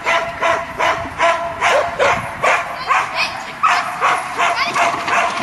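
Dog barking repeatedly in an even rhythm, about two to three sharp barks a second.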